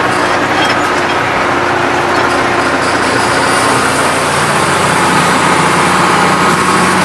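Turbocharged tractor engine running steadily, with a high whine that comes in about three and a half seconds in; the turbo has just been freed up after being seized.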